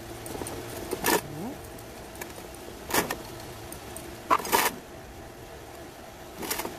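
Metal spatula and tweezers scraping and clicking against coarse potting grit (masa) and a small plant pot, giving a few short sharp clicks over a faint steady hum.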